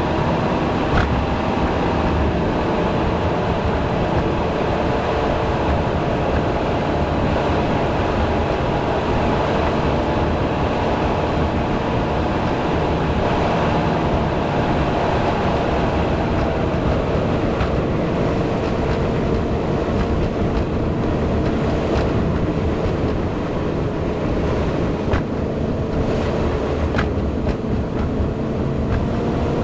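Car driving uphill on a paved mountain road: steady engine drone over tyre and road rumble, with a few faint clicks.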